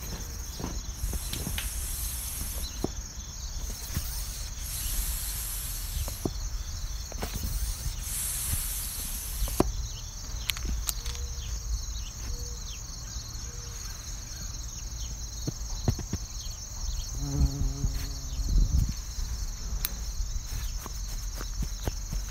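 A layered mix of sounds: a steady high-pitched drone throughout, scattered clicks and taps, three bursts of high hiss in the first half, and a short low pitched hum about seventeen seconds in.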